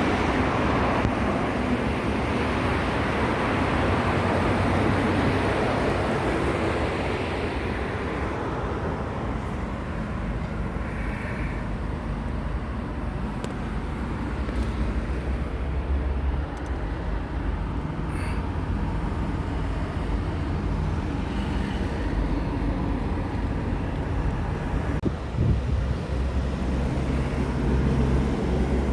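Highway traffic going by: a steady rumble of tyres and engines, with one louder pass over the first few seconds that fades away.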